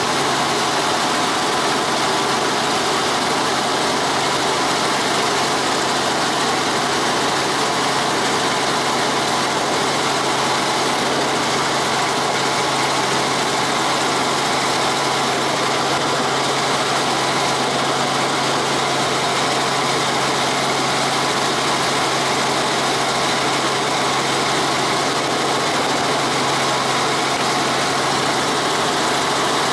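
Light helicopter in cruise flight heard from inside the cabin: a steady drone of engine and rotor with a strong low hum under a wide rushing noise.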